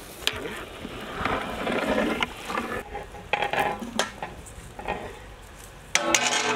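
Metal cookware being handled: scattered knocks and scrapes, then a large metal lid set onto a big cooking pot about six seconds in with a loud clang that keeps ringing.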